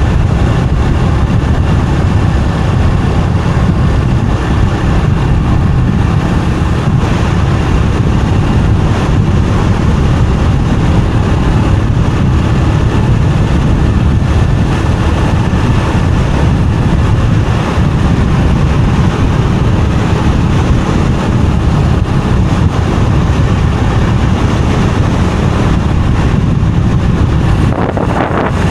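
Motorbike riding steadily along a road, its engine and road noise mixed with a steady low wind rumble on the microphone.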